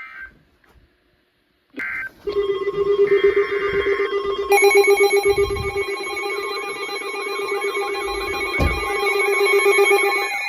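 Several emergency alert receivers sounding their alarms together, between two severe thunderstorm warnings. A few short chirps of alert data tones come first. About two seconds in, a steady pulsing alarm tone starts, and more beeping and warbling alarm tones pile on at about four and a half seconds.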